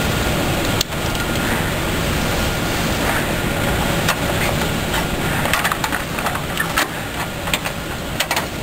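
Steady hum of factory machinery. In the second half come a series of sharp clicks and snaps as a splicing tool and metal splice clip are worked onto a radial component tape.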